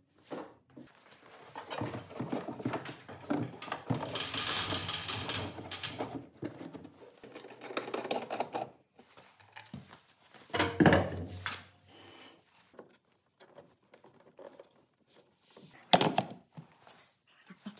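Hand tools clattering and tapping against a car's dented body panel, densest in the first half, with a louder burst midway. A single sharp click near the end as the fuel filler flap is pressed.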